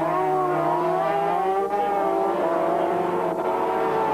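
Two racing sidecar outfits' two-stroke engines running hard at speed close together, their engine notes rising and falling, with two brief breaks in the sound.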